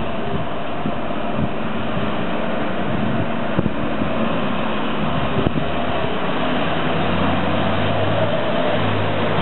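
Fire engines running as they drive past in a convoy, a steady vehicle drone. A deeper engine hum comes in about seven seconds in as the aerial ladder truck passes close.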